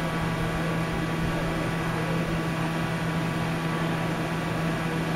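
A steady background hum: one strong low tone with fainter higher tones over a light hiss, unchanging throughout.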